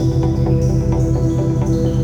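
Electronic background music with a steady beat and sustained synth notes.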